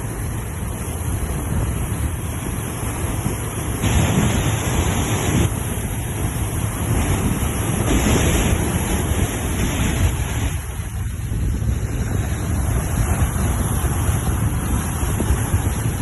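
Sea waves breaking and washing on the shore, a steady surf roar that swells twice as waves break, with wind buffeting the microphone.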